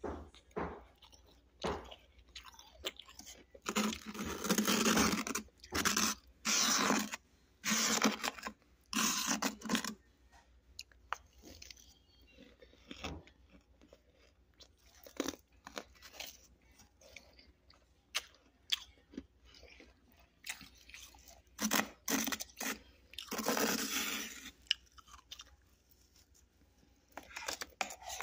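Close-up crunching and chewing of freezer frost in a person's mouth, in repeated bites. The heaviest crunching comes in runs about a sixth of the way in and again about three-quarters through, with softer chews in between.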